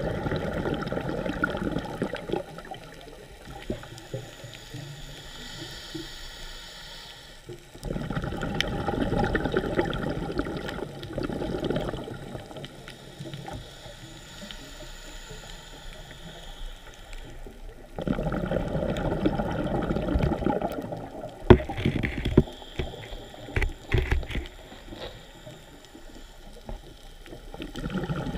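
Scuba diver breathing through a regulator underwater: a loud rush of exhaled bubbles about every ten seconds, with quieter hissing of the inhale between. A few sharp clicks come about two-thirds of the way through.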